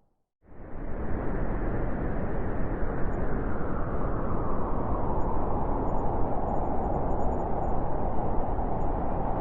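Blizzard wind blowing, fading in from a brief silence about half a second in, then a steady roar of wind noise with a howling tone that grows stronger in the second half.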